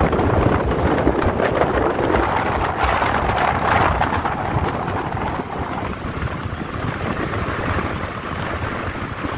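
Wind rushing over the microphone of a moving vehicle, mixed with road and traffic noise. It swells about three to four seconds in, then eases slightly.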